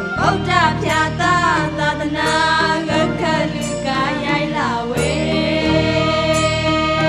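A song playing: a singing voice runs through wavering, ornamented notes over backing music, then holds one long note from about five seconds in.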